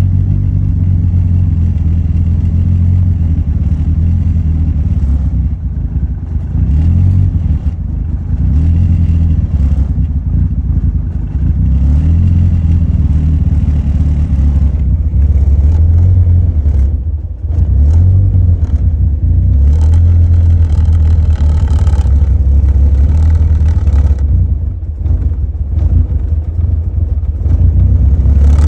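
Mazda MX-6 running, with a loud, steady low drone and buzzing, rattling interior plastic trim over it. It is the vibration that the owner blames on new engine mounts shaking the car's 32-year-old plastics.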